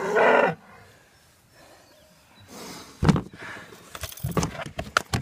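A calf bawls loudly once, the call cutting off about half a second in. From about three seconds in come a series of knocks and scuffing, handling sounds.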